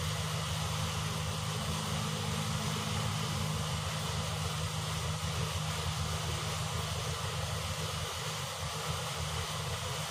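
A steady low mechanical hum with an even hiss over it, unchanging throughout.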